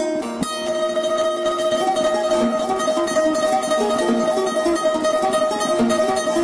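Background music: a plucked string instrument playing a quick melody over a held drone.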